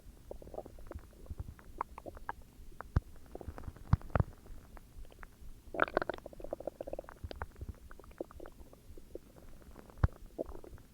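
A person's stomach growling and gurgling: scattered small pops and squelches, with a longer, pulsing gurgle about six seconds in.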